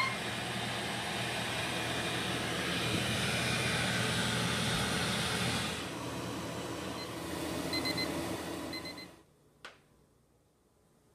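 T-fal ActiFry air fryer running, its hot-air fan and motor making a steady hiss with a low hum, and a few short high beeps near the end. The running cuts off suddenly about nine seconds in, followed by a single click.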